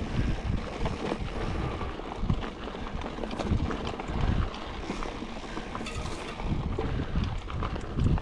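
A mountain bike rolling downhill on a dirt trail, with wind buffeting the microphone and frequent short rattles and knocks from the bike and tyres over rough ground.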